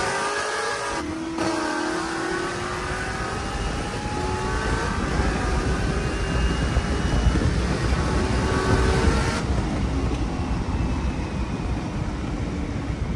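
High-performance V8 sports car accelerating hard at full throttle, the engine note climbing in pitch again and again as it shifts up through the gears.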